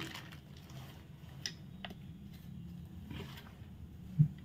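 Quiet handling at a kitchen counter: a few faint light clicks, then a single soft knock near the end as a small plastic cup of water is taken up from the stone worktop, over a low steady hum.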